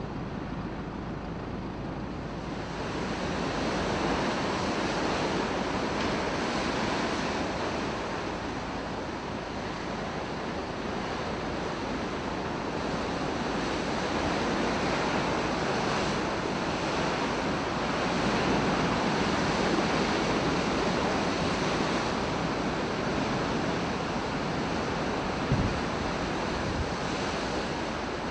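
Rough sea in strong wind: waves surging and breaking in a steady rush that swells and eases, with wind buffeting the microphone. There is a brief thump near the end.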